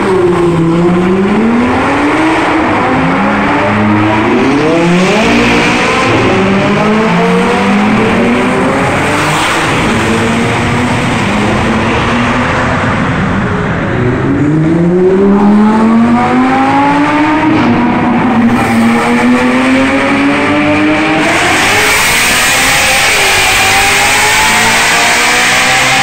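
Lamborghini Huracán V10 engines accelerating hard, the engine note climbing in repeated sweeps and dropping back at each upshift.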